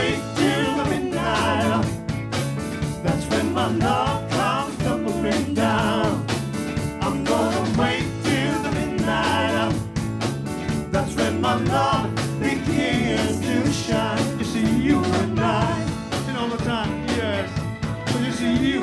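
A live R&B band playing an upbeat groove on drum kit, bass, electric guitar and keyboards, with a voice singing over it.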